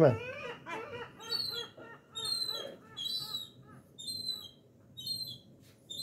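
Juvenile gull giving a series of short, thin, whistled begging calls, each a brief rising-and-falling note, repeating about every half second to a second.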